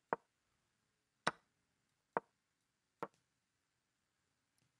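Online chess move sound effects: four short wooden clacks of pieces being placed, about a second apart, during a fast blitz game.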